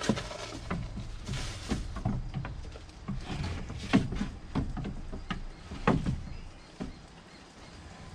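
Irregular knocks and low thuds with faint rustling, as sheep jostle and eat at a feed trough of grass, feed and mineral salt. Two louder knocks come about four and six seconds in, and it settles down near the end.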